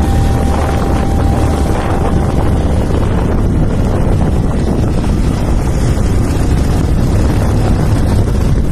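Wind rushing over the microphone of a moving vehicle, with a steady low rumble of road and engine noise.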